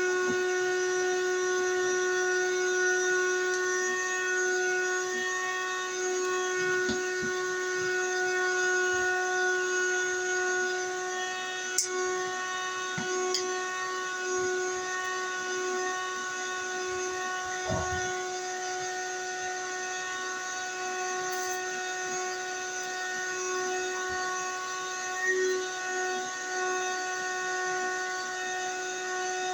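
A steady droning hum holding one pitch throughout, with a few faint knocks along the way.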